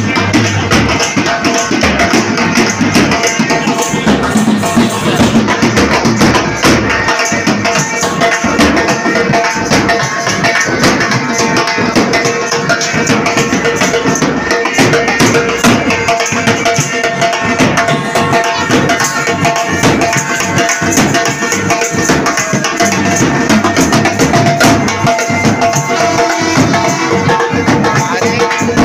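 Pipe band playing: bagpipes sound steady, held notes over a continuous drum beat.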